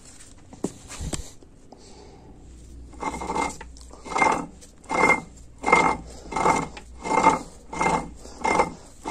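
Differential ring gear of a 41TE automatic transaxle being spun by hand in its case: a few light knocks, then from about three seconds in a rasping whir with each push, about one and a half times a second. It makes this noise because no gear is meshing with it on that side, not because of a fault.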